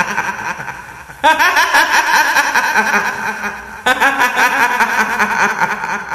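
Kuntilanak ghost laugh: a woman's high-pitched, rapid cackling giggle in three waves, a fresh wave starting about a second in and another near four seconds, each trailing off.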